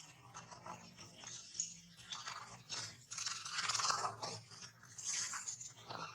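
Close crunching and rustling: a run of short crunchy clicks with a louder, longer rustle about three seconds in, over a faint steady low hum.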